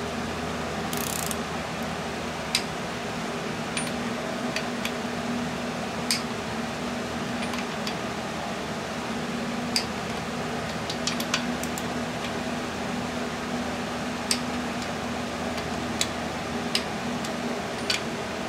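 Click-type torque wrench tightening oil pump bolts to 20 foot-pounds: a dozen or so sharp single clicks a second or more apart, some in quick pairs, as each bolt reaches torque. A steady fan hum runs underneath.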